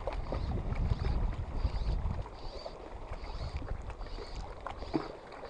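Wind rumbling on the microphone over small waves lapping at a rocky lake shore, with a soft hiss coming back at an even pace.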